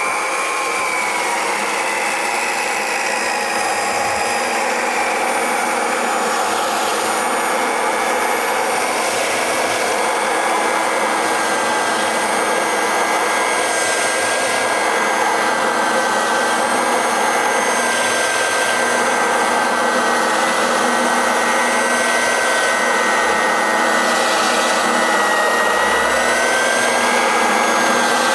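4x24 belt sander running under load as it sands wood in back-and-forth passes. It makes a steady motor whine over the hiss of the belt, and the pitch dips slightly in the first second or two as it is eased down onto the work.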